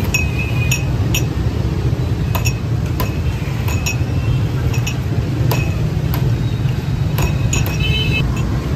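Glass tumblers clinking against each other as they are handled and set down: about a dozen light knocks, two of them ringing briefly (just after the start and near the end). Under them runs a steady low rumble of street traffic.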